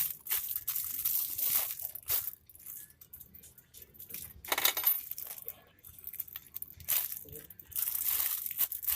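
Plastic packaging crinkling and rustling in irregular bursts as it is handled, one louder burst about halfway through.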